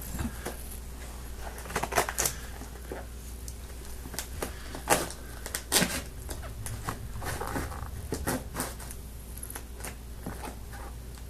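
A knife cutting and scraping at packing tape on a cardboard box, with irregular short scrapes and clicks over a steady low hum.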